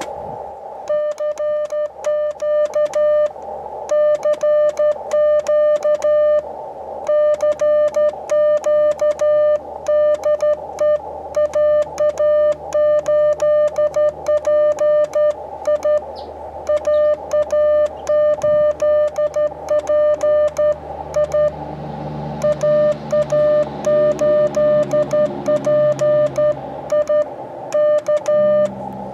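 Morse code (CW) from an Elecraft KX2 transceiver: a single steady beep keyed on and off in dots and dashes, sent with a paddle key, with a band of receiver hiss in the gaps between characters.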